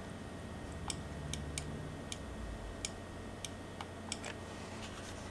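About ten sharp, irregularly spaced clicks from an Amiga 4000 computer setup, over the steady low hum of the running machine.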